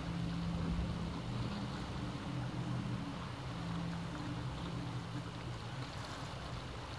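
Sea waves washing steadily, with a low motor drone that fades in and out over them.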